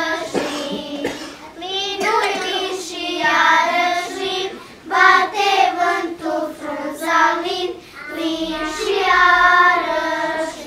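A group of children singing a slow Romanian Christmas song together, in phrases of long held notes, the last one fading out at the end.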